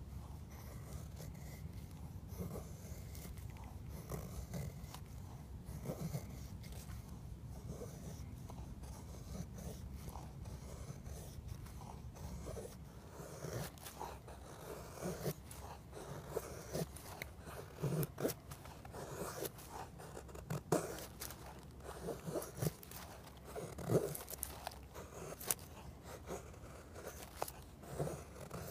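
A knife blade shaving thin curls down a wooden stick to make a feather stick: a string of short scraping strokes, louder and sharper in the second half.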